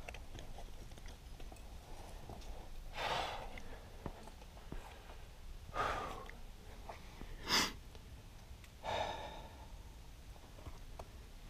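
A climber's hard breathing while straining on a difficult lead: four short, forceful exhalations a couple of seconds apart, the third the sharpest.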